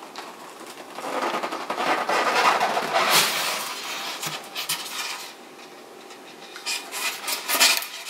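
Styrofoam cooler lid scraping and rubbing against the foam cooler and cardboard box as it is worked loose and pulled out. This is followed by a few sharp knocks and clicks near the end as it comes free.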